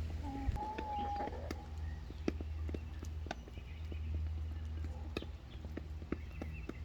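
Chickens calling, one drawn-out call about a second long near the start, with many scattered sharp taps and clicks over a steady low hum.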